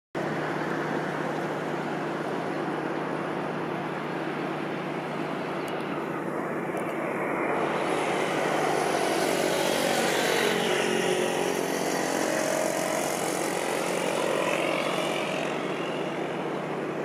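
Steady engine drone. It grows louder between about eight and fifteen seconds, its tone sweeping up and down, then settles back.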